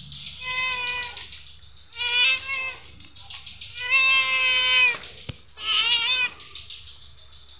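Hungry orange tabby cat meowing repeatedly for food: about five meows, the longest and loudest about four seconds in.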